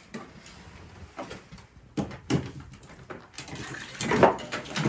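Knocks, scuffs and clatter of a person moving about and grabbing a fishing rod in a small ice-fishing shack, with the loudest knock about four seconds in.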